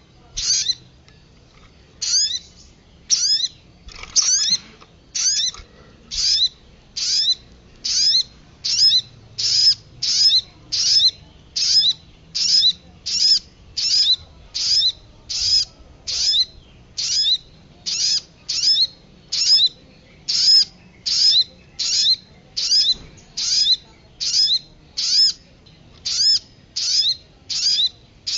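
Bird-lure recording of small songbird calls: sharp, high, downward-sweeping notes repeated steadily, a little more than one a second, after a short pause at the start.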